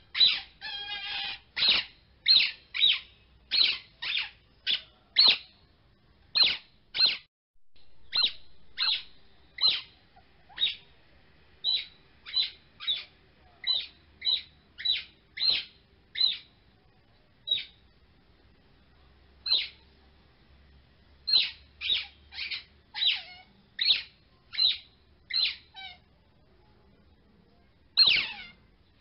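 Repeated short, high chirping sound effects, each a quick sweep up in pitch, coming about once or twice a second with a few brief pauses.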